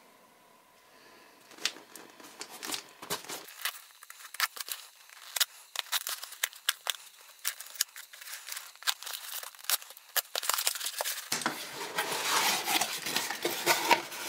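Cardboard shipping box being cut and torn open by hand: many sharp scrapes, clicks and tearing of tape and cardboard flaps, then plastic wrapping crinkling densely for the last few seconds.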